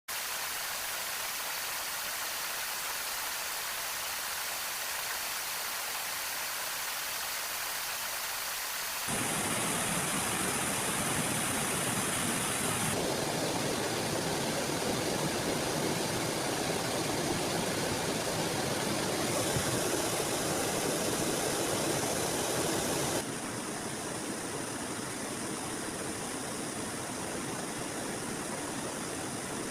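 A small river flowing: a steady rushing of water that changes abruptly a few times, fuller and louder through the middle stretch.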